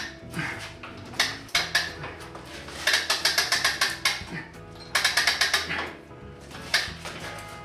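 Hand-cranked cable winch ratcheting in runs of rapid clicks, about ten a second, as it is wound under load to pull a steamed black walnut blank around a bending form. Background music plays underneath.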